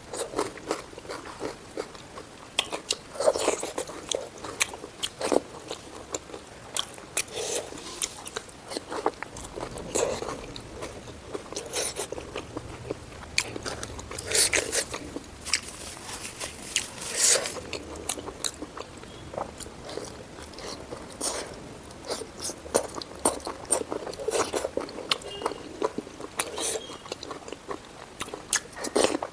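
A person chewing and biting food close to the microphone: irregular mouth clicks and smacks, several a second, with a few louder bites.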